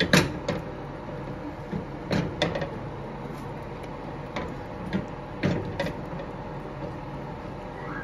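Chopped vegetables (broccoli florets, zucchini and bell pepper pieces) tipped into a pot of tomato pasta sauce. Several separate knocks and clatters are heard over a steady kitchen hum.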